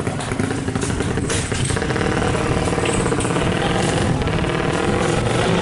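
Tuned 200cc racing motorcycle engine running, growing steadily louder across the few seconds.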